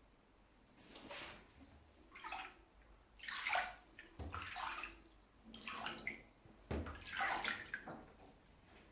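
Water splashing in about six irregular bursts, with a couple of low thumps, as a kitten plays with water in a bathroom.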